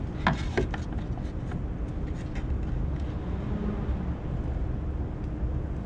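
Steady low background rumble, with a few light clicks in the first second.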